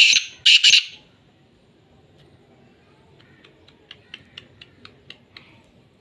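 Black francolin calling: two loud, harsh notes in the first second, then a quieter run of about ten short notes from about three seconds in.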